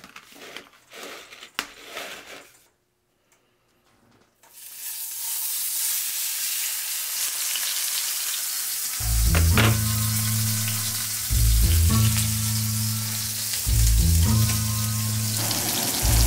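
Steak sizzling and frying in oil in a nonstick pan on an electric coil stove: the sizzle starts about four and a half seconds in, after a few light clicks of tongs in the first two seconds. From about nine seconds a hip-hop beat with a heavy bass line plays over the sizzle.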